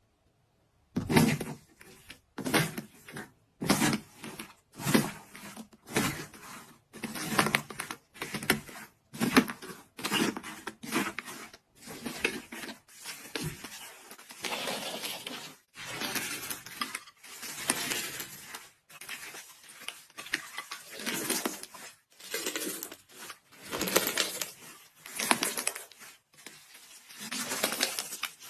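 Crispy iceberg slime being pressed and squeezed, its dried crust crackling in repeated bursts. At first they come about one a second, then they run longer and closer together.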